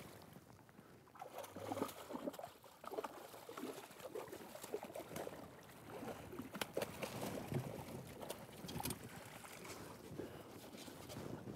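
Hooked brook trout thrashing at the water's surface while being played to the boat: irregular splashes and slaps of water, coming in uneven bursts.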